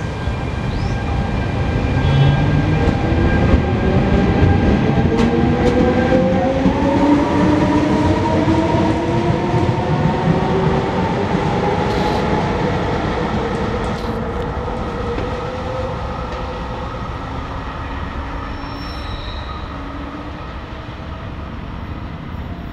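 FS E464 electric locomotive pushing a regional train away from the station: rumbling rolling noise with several whining motor tones that climb in pitch as it accelerates. The sound is loudest early on the pull-away and then fades as the train draws off.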